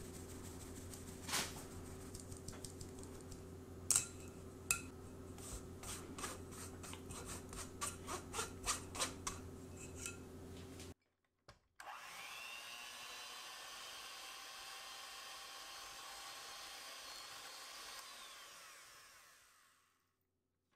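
Stainless-steel mesh sieve tapped again and again as flour is sifted through it, the taps quickening into a steady run of two or three a second. After a short break, a whirring starts, rising in pitch, holds steady, then fades out.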